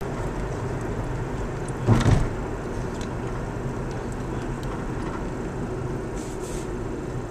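Steady road noise inside a moving car's cabin: a low rumble of engine and tyres on the highway. A single loud thump about two seconds in.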